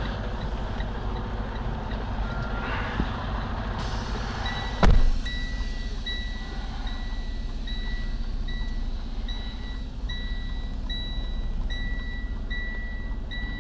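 Semi truck's diesel engine idling, with one loud thump about five seconds in. Right after it a reversing alarm starts beeping steadily, about three beeps every two seconds, as the tractor is put in reverse to back under the trailer.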